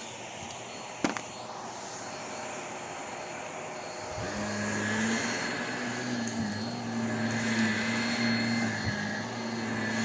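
Vacuum cleaner motor switched on about four seconds in, spinning up and then running steadily with a hum and a higher whine. Before it starts there is a steady noise with a single click about a second in.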